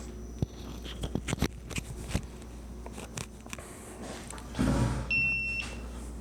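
A few sharp handling knocks and clicks, then a brief rustle and a single steady electronic beep of about half a second near the end. The beep is a camera's warning that its SD card is full.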